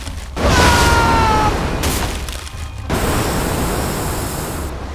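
Loud rushing, rumbling sound effects, with a two-note whistling tone that falls slightly from about half a second in and lasts about a second. From about three seconds in comes a bright hissing of water spraying from a toy fire truck's water cannon.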